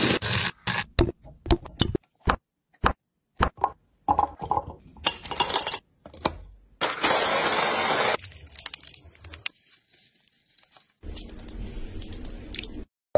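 Kitchen prep sounds in quick succession: a knife cutting through mango on a cutting board with a run of sharp clicks and knocks, a mini food chopper blending strawberries and ice for about a second near the middle, then whipped cream hissing out of a piping bag near the end.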